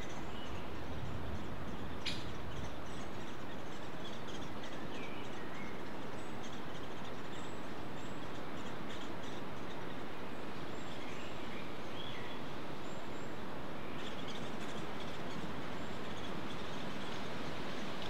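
Woodland birds calling faintly, with short chirps and whistles scattered over a steady background hiss. A single sharp click comes about two seconds in.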